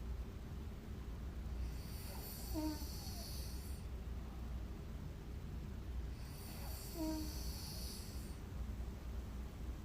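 A woman snoring in her sleep: two long breaths about four and a half seconds apart, each a hissing rush with a short throaty tone in it, over a steady low rumble.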